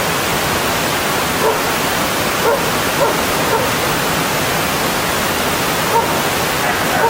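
Mountain stream rushing steadily over rocks, with a few brief, pitched sounds from a dog scattered through it.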